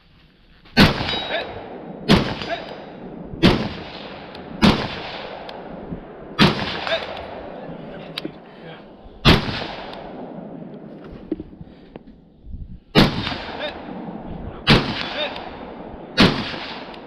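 M4-clone AR-15 rifle fired in single aimed shots, nine in all, spaced about one to three seconds apart with a longer pause in the middle. Faint clangs of distant steel targets being hit follow some of the shots.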